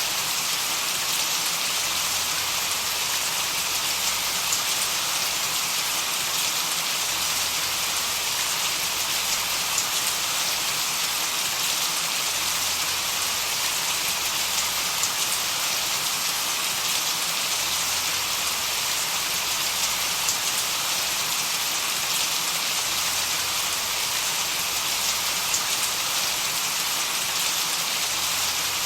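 White noise played steadily as a hiss that is strongest in the high range, with faint scattered ticks that make it sound like rain. It does not change over the whole stretch.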